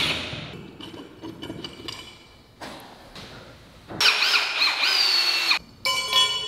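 Cordless power driver backing out the screws that hold an old garage door sensor bracket to the wall. Its motor whines with a pitch that rises and falls in a run of about a second and a half, about four seconds in, with a shorter run near the end and quieter clicks of handling between.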